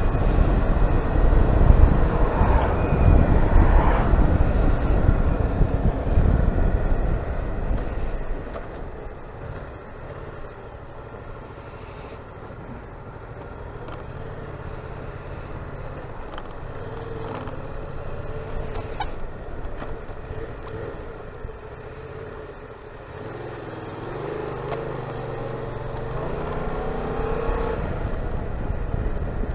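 Yamaha Tracer 700's parallel-twin engine running on the move, with loud wind rush over the first several seconds. It then drops to a quieter, steadier engine note, and the pitch rises again near the end.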